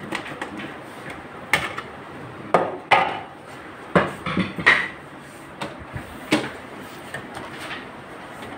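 Sharp knocks and clatters of a Ricoh MP 201 copier's plastic scanner frame and glass panel being handled and lifted during servicing: a handful of separate hard taps spread over several seconds, with quieter handling noise between.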